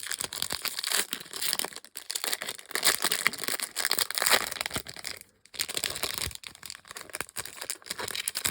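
Trading card pack wrapper being torn open and crinkled by hand, a dense crackling that pauses briefly twice.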